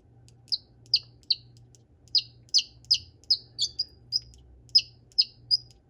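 Baby chick peeping: about a dozen short, high, downward-sliding peeps in irregular runs.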